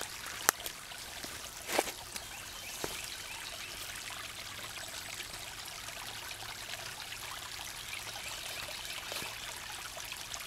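Small forest creek trickling and splashing steadily over a low ledge of stones. A sharp click about half a second in and a knock just before two seconds stand out above the water.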